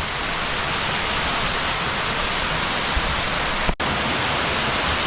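Close waterfall, a steady rush of falling water that cuts out for an instant nearly four seconds in.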